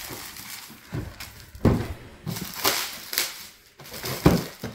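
Plastic shrink-wrap crinkling and tearing as it is pulled off a large cardboard board-game box, in irregular crackly bursts.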